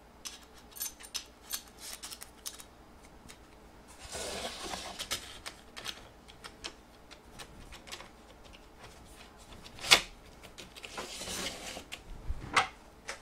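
Small clicks, taps and scrapes of a picture frame and its small metal fittings being handled and fitted together on a wooden board, with a scraping patch about four seconds in and one sharp click near ten seconds.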